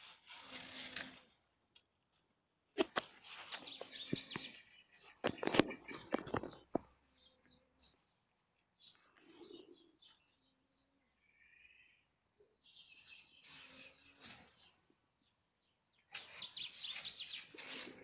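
Dry fallen leaves rustling and crackling in bursts as a cat paws at and drags a dead bird across them, with short pauses between the bursts.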